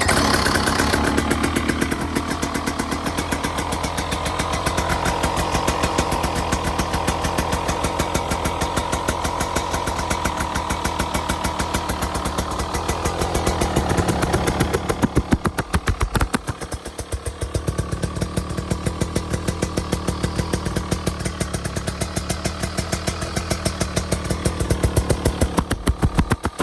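2025 GasGas EC300 GP's two-stroke engine running through the stock exhaust with a Fisch spark arrestor insert, which narrows the outlet from 1 inch to 3/4 inch. It idles with a fast, even pulse, rises briefly about fifteen seconds in, drops back, and climbs again near the end.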